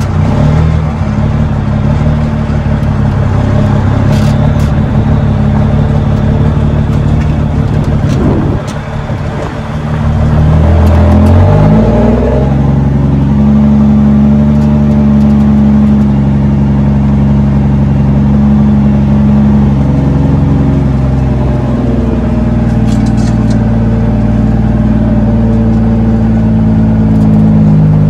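L10 Cummins inline-six diesel running loud through 6-inch straight-pipe stacks as the truck drives under load. About eight seconds in the engine eases off for a couple of seconds, then its pitch climbs and settles into a steady pull.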